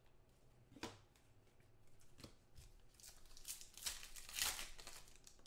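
Foil trading-card pack wrapper torn open and crinkled, the tearing loudest about four seconds in, after two light clicks of cards being handled.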